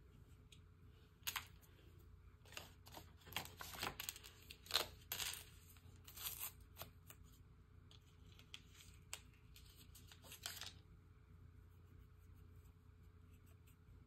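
Something being torn and crinkled by hand: a run of sharp tearing rustles and clicks that stops after about ten seconds.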